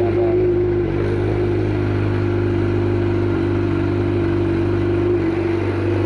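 Suzuki GSX-R inline-four idling steadily through an M4 GP slip-on exhaust, with no revving.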